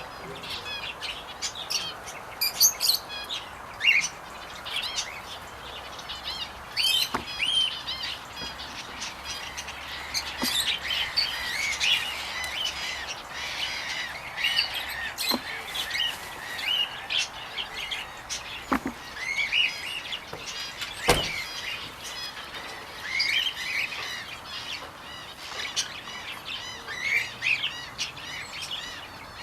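Many small aviary birds chirping and twittering together in a dense, overlapping chorus of short calls, with a sharp click about two-thirds of the way through.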